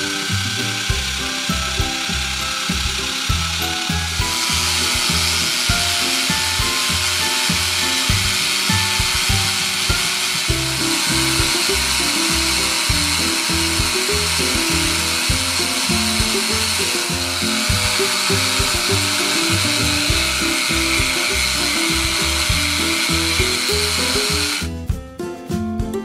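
Battery-powered toy blender's small motor whirring steadily, its sound shifting slightly a few times, and stopping about a second before the end.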